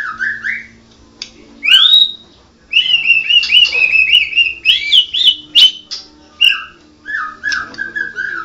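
White-rumped shama (murai batu, Medan type with pied 'blorok' plumage) singing in loud whistled phrases. About three seconds in, a fast run of rising-and-falling notes mixed with sharp clicks starts and lasts several seconds. Lower whistled phrases follow near the end.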